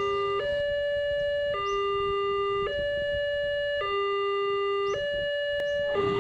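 Hi-lo two-tone siren sound effect, alternating between a lower and a higher held tone, switching about once a second.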